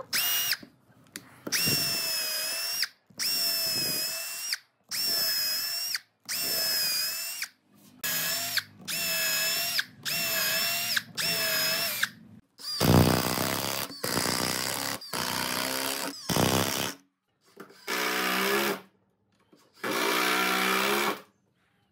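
Cordless drill with a twist bit boring holes into wooden blocks, run in many short bursts of about a second each with a steady motor whine, split by brief silences. The later bursts are lower in pitch.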